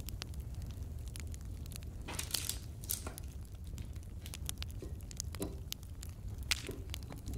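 Parchment baking paper rustling and crinkling, with light clicks and taps, as baked shortbread cookies are picked off a baking tray and set on a metal dish. Several short rustles, about two, three, five and a half and seven seconds in, over a low steady rumble.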